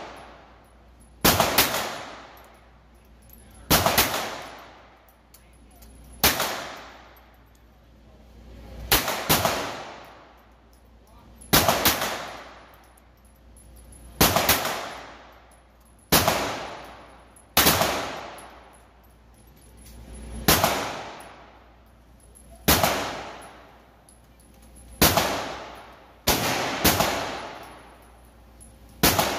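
Pistol shots fired one at a time at a slow pace, about one every two to three seconds with a few quick pairs, some fifteen in all. Each shot is followed by a long echo off the walls of an indoor firing range.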